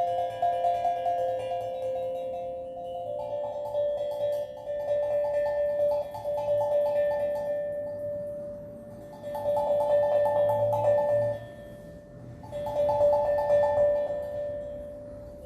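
Steel drum played freely in a slow improvisation: ringing, bell-like notes, with phrases of quick repeated strikes that pause to let the notes ring out and fade.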